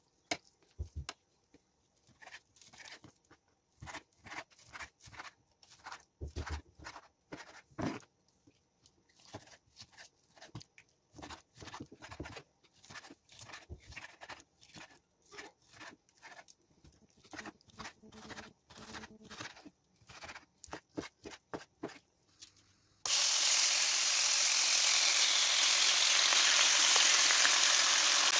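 A spoon scraping and tapping against a glass bowl and food being spooned out, heard as a long run of short clicks and scrapes. Near the end a loud, steady rushing hiss starts abruptly.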